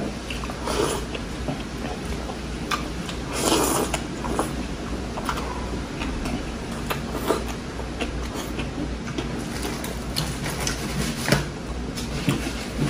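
Close-up eating sounds of a person chewing rice and beef from sinigang: irregular wet mouth clicks and smacks, with one longer noisy burst about three and a half seconds in, over a steady low hum.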